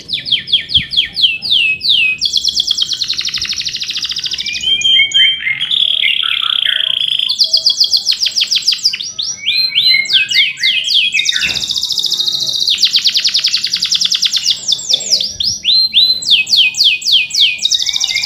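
Male domestic canary singing: fast rolling trills, each a quick run of repeated downward-sweeping notes, alternating with short chirped 'cuit cuit' phrases.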